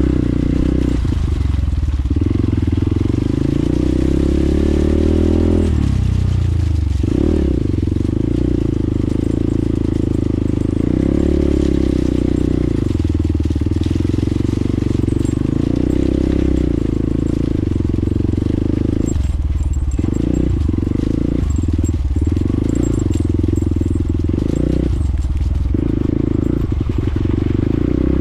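Hero XPulse 200 single-cylinder engine running as the bike rides a muddy trail, the engine note falling then climbing again about six seconds in, with several brief throttle-off dips later on.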